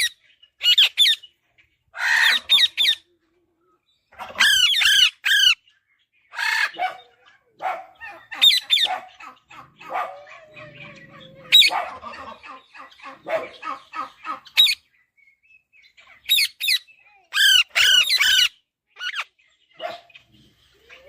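Alexandrine parakeet chick squawking in repeated bursts of three or four harsh calls each, with quieter, rapid chattering calls between the bursts.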